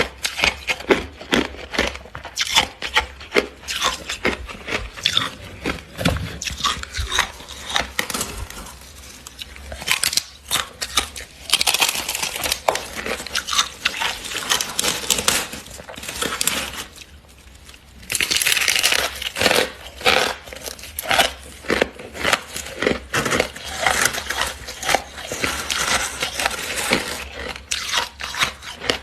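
Freezer frost crunching close to the microphone: rapid, irregular crunches and crackles in long runs, with two brief lulls.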